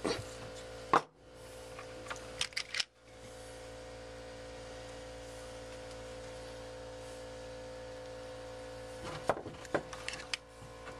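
Hand crimping tool clicking and snapping as copper ring terminals are crimped onto power wires and handled. There is one sharp snap about a second in, a few quick clicks around two to three seconds, and another cluster near the end, all over a steady electrical hum.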